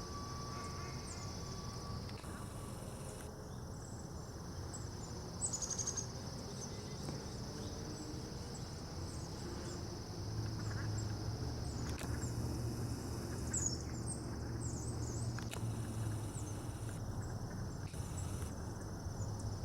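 A steady, high-pitched chorus of crickets trilling, with brief bird chirps. A low machinery rumble from nearby construction swells up about halfway through.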